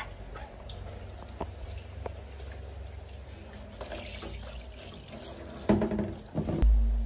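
Water running from a handheld shower head, spraying and splashing in a small tiled bathroom, with scattered drips and light knocks. Near the end comes a short, louder pitched sound, followed by a low rumble.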